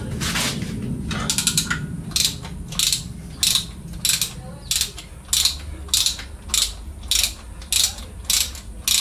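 Hand ratchet wrench being worked back and forth on a bolt during engine teardown, each return stroke giving a short burst of clicks, about three strokes every two seconds after a first run of quicker clicks.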